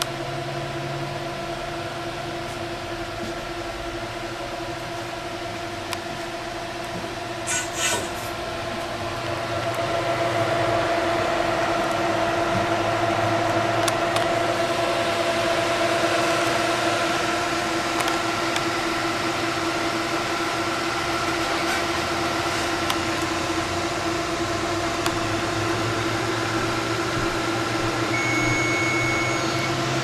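Four high-speed Delta AFB1212SH 120 mm fans on a homemade water-cooling radiator running flat out: a steady rush of air with a steady hum of several tones. The rushing grows louder about ten seconds in, and a few clicks come just before that.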